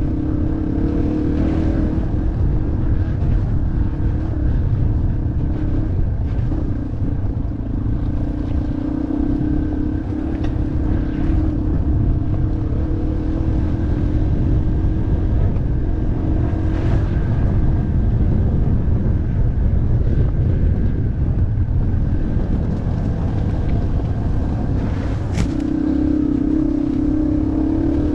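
Off-road motorcycle engine running under way with a steady note over a constant low rumble. The note fades back for a stretch in the middle and comes up strongly again near the end.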